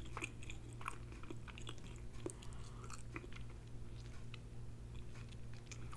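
A person chewing jerk chicken close to the microphone, with soft, wet mouth clicks and smacks scattered throughout. A faint steady low hum sits underneath.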